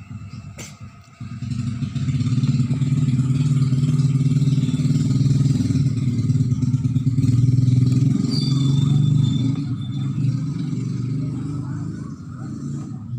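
A cat purring: a steady low rumble of rapid pulses that starts about a second in and stops just before the end.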